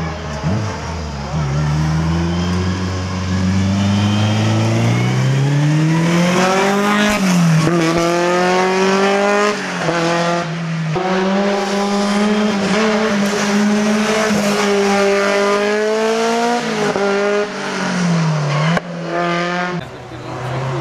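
Race car engine pulling hard from the start, its pitch climbing and then dropping sharply at each of several gear changes as it accelerates away up the climb.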